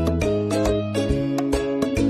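Instrumental background music of plucked-string notes over sustained bass notes, with notes struck several times a second.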